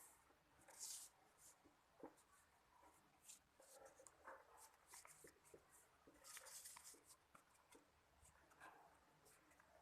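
Faint rustling of a sheet of paper being folded and creased by hand: short scattered swishes and soft ticks, the loudest about a second in and again around six to seven seconds in.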